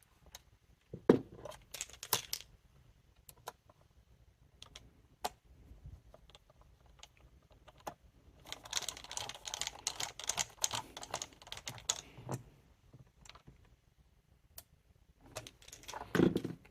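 Screwdriver and plastic parts of a Dyson vacuum cleaner head being handled, giving scattered small clicks and taps, with a sharp knock about a second in. About halfway through comes a dense run of rapid clicking and scraping as a short Torx screw is driven into the plastic housing.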